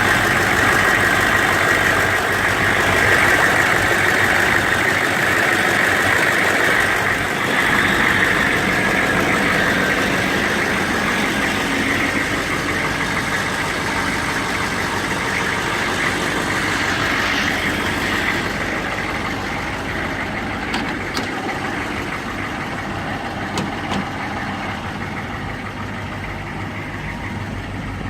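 6.5-litre V8 diesel engine idling steadily with a light diesel clatter; about two-thirds in, the sound becomes duller as the highs fall away.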